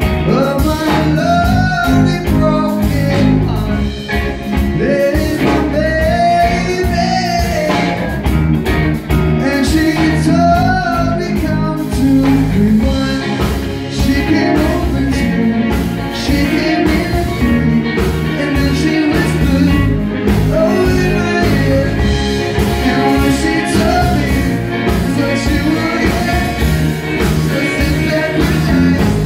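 A live pop-rock band playing a song, with a lead singer over electric guitars, bass guitar, drums and keyboard.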